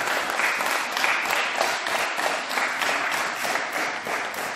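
Applause: many hands clapping together in a dense, steady patter.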